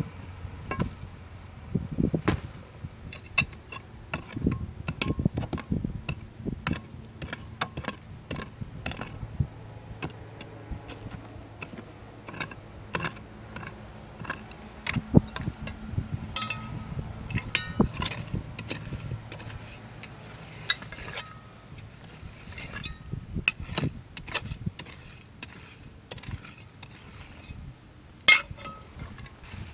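A small hand pick and a hand trowel dig into rocky soil and stone: irregular knocks, scrapes and sharp metallic clinks of metal striking rock, a few a second, with loose stones rattling.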